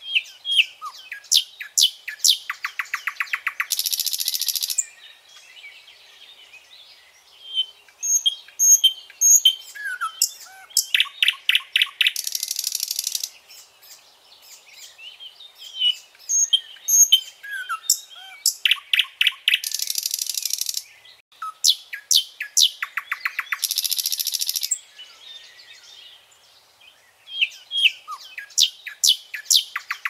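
Common nightingale singing: about five phrases with short pauses between them. Each phrase mixes sharp varied notes, fast trills of one repeated note and harsh buzzy rattles.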